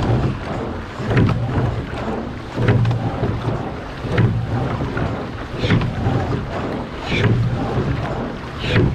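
Water rushing and slapping along the hull of a men's pair rowing shell at race pace, with wind on the microphone. A surge and a sharp knock about every second and a half mark each oar stroke.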